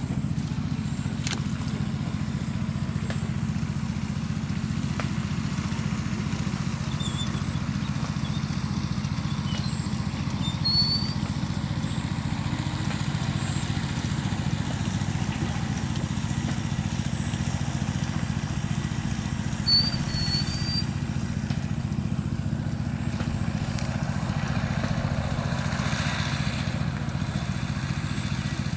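A steady low drone like a running motor, with a few short, high bird chirps, the loudest about a third and two-thirds of the way through.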